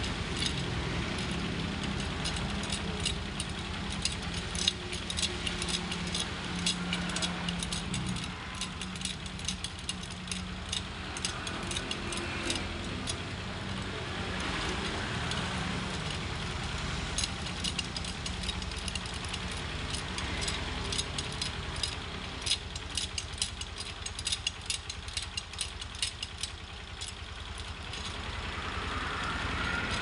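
Steel spokes clicking and jingling against each other, the hub and the rim as they are threaded by hand into a motorcycle wheel, many small metallic ticks in quick irregular succession. Under them, a vehicle engine runs steadily in the background, louder for the first eight seconds and then fading.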